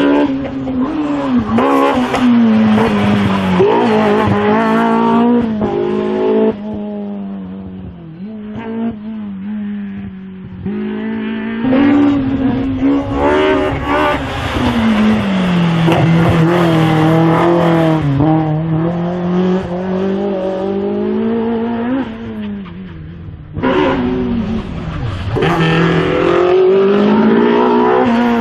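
Race car engine working hard through the slalom gates. The revs climb and fall again and again as it accelerates, brakes and shifts gear. The sound drops away for a few seconds about a quarter of the way through and briefly again near the end.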